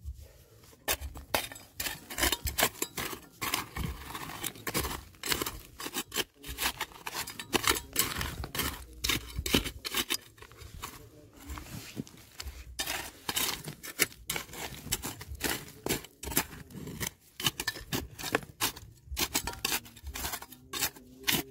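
A hand digging tool scraping and knocking against soil and stones, with many irregular, closely spaced strikes and scrapes.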